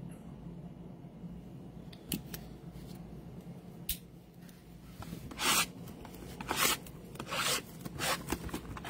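Cardboard trading-card boxes being handled and shifted on the table: a couple of light clicks, then from about five seconds in a run of short scraping, rustling strokes about once a second, over a low steady hum.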